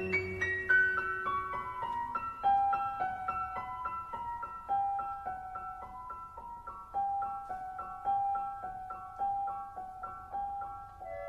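Background music: a slow, gentle piano or electric piano melody of single sharply struck notes that each fade, stepping down at first and then moving gently.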